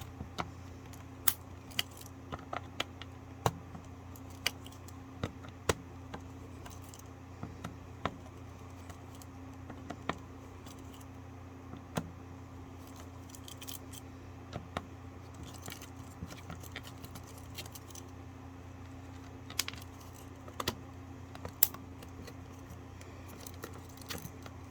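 Irregular small clicks and taps of plastic and metal parts as a surge protector is taken apart by hand, over a steady low hum.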